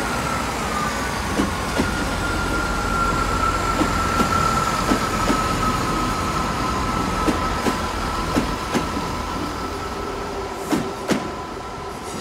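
A Class 43 HST power car pulling its train slowly into the platform: steady engine rumble under a high whine that sinks slightly and levels off, with wheels clicking over rail joints about a dozen times, two sharper clicks near the end.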